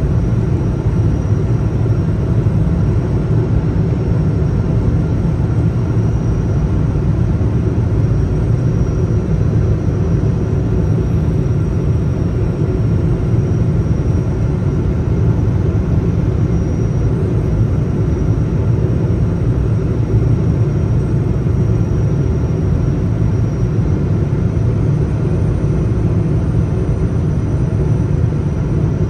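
Steady jet-airliner cabin noise inside a Boeing 777: a loud, even rumble of engines and airflow, with a faint steady high tone above it.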